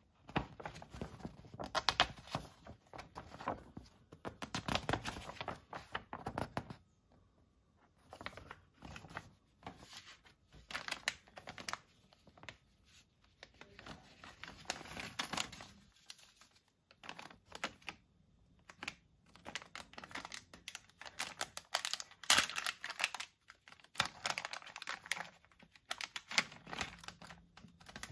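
Paper pages of an instruction booklet rustling as they are leafed through, then a clear plastic zip bag crinkling in fits and starts as it is handled and opened. There is a brief silent break about seven seconds in.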